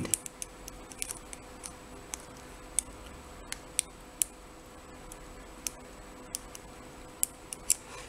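Small sharp metallic clicks, irregular and a few per second, as a lock pick probes and lifts the pins inside the keyway of a brass ASSA Abloy padlock to feel how many pins it holds.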